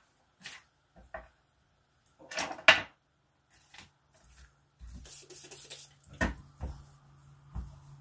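Craft supplies being handled and set down on a desk: scattered light knocks and taps, with a louder scraping rustle between two and three seconds in. A low steady hum comes in about five seconds in.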